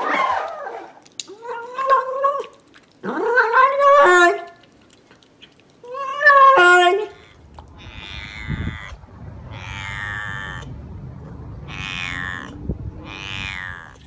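An orange kitten squeaks loudly four times in high, pitched calls. Then a chihuahua gives four drawn-out, raspy whining calls, falling in pitch, over the low rumble of a car.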